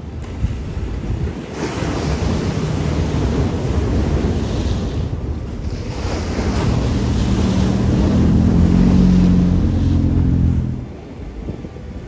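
Ocean waves breaking on a rocky shore. Two breakers crash one after the other, the second louder, and the sound drops off sharply near the end.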